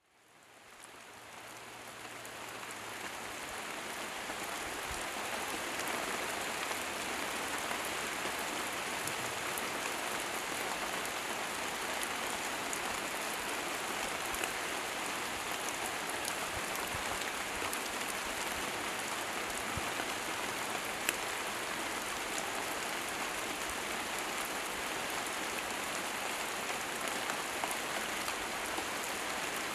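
Steady rain falling on leafy trees and shrubs: a dense, even hiss with the odd sharper drop, fading in from silence over the first few seconds.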